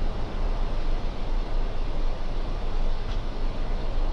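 Steady rushing cockpit noise on the flight deck of a Boeing 747-400 in descent, with the deepest sound strongest. A faint tick about three seconds in.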